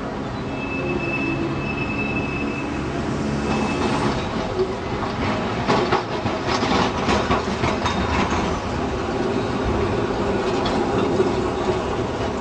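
Blackpool electric tram running on its rails: a steady rumble, with a thin high wheel squeal for the first few seconds and a run of clicking and knocking from the wheels on the track in the middle.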